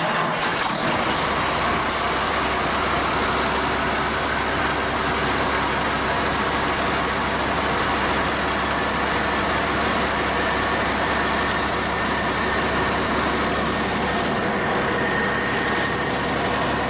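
Cummins 8.3-litre inline-six diesel running at a steady idle just after firing up on a cold start, at about 40 degrees.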